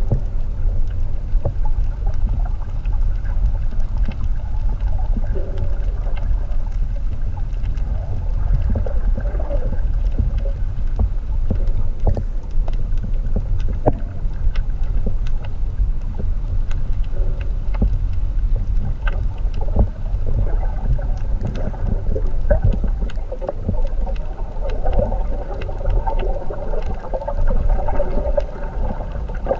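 Underwater water noise picked up by a submerged camera: a steady low rumble with many small clicks scattered through it.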